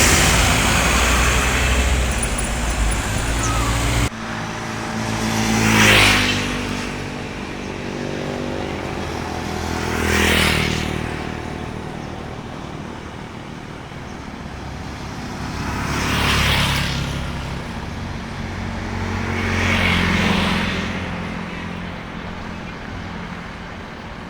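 Tour coaches passing one after another: four separate pass-bys, each swelling and fading. Before them, a loud steady road roar cuts off abruptly about four seconds in.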